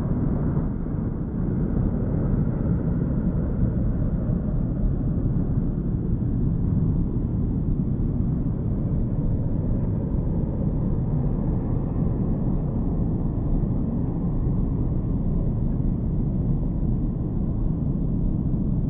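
Jet airliner engine noise: a steady, deep rumble.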